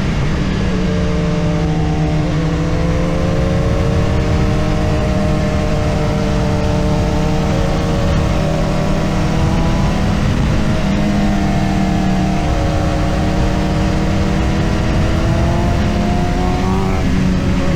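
BMW S1000RR inline-four engine running under load on the road, its pitch climbing slowly twice as the bike pulls through the revs, over a heavy low rumble of wind and road noise.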